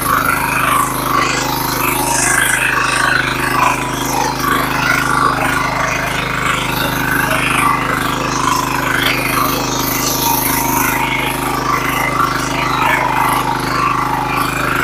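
Diesel engine of a walk-behind power weeder running steadily at a constant speed under load while its rotary tines churn through the soil.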